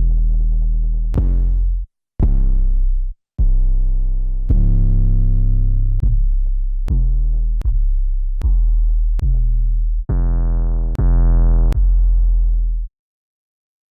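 Distorted trap 808 bass samples played one after another, about a dozen deep booming notes, each opening with a click and sustaining a second or so before the next cuts it off. They stop about thirteen seconds in.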